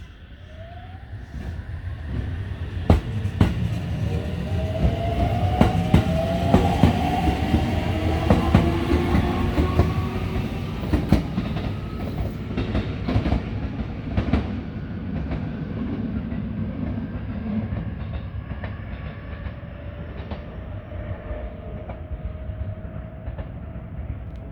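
Aichi Loop Railway 2000 series electric train pulling away. Its motor whine rises in pitch in several tones as it accelerates, and the wheels click over rail joints. The sound is loudest a few seconds in, then slowly fades as the train draws away.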